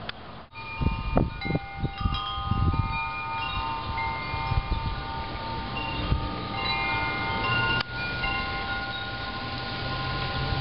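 Wind chimes ringing in gusty wind, several notes struck irregularly and ringing on over one another, over a low rumble of wind gusts on the microphone.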